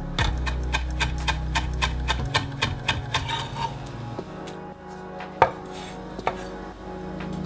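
Kitchen knife chopping chives on a wooden cutting board: a quick run of sharp taps, about four a second, for the first three and a half seconds, then two single knocks, over soft background music.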